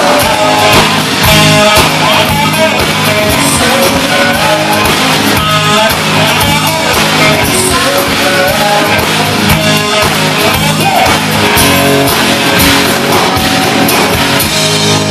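Loud live rock band playing through a stage PA: electric guitar, acoustic guitar, bass guitar and drums.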